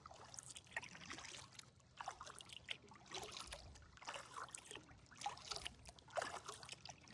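Kayak paddle strokes dipping into water about once a second, with water trickling off the blade between strokes.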